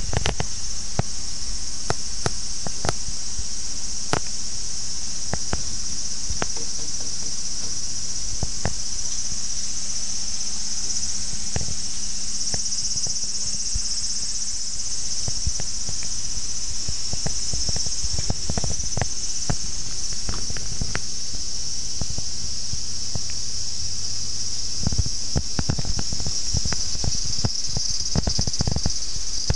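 Steady, high-pitched chorus of singing insects, with scattered light knocks and rustles that grow more frequent near the end.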